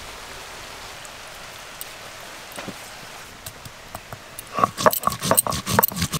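A steady soft hiss. Then, from about two-thirds of the way in, a stone roller is worked back and forth over whole cumin seeds on a grooved stone grinding slab (shil-nora), making rapid, loud, gritty scraping strokes of stone on stone.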